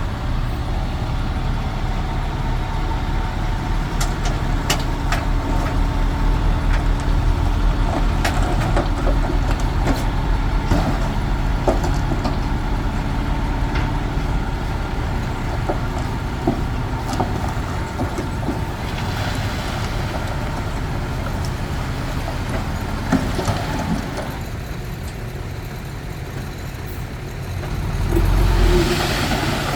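Komatsu D21P bulldozer's diesel engine running under steady load, with scattered metallic clanks, and the engine louder for a moment near the end.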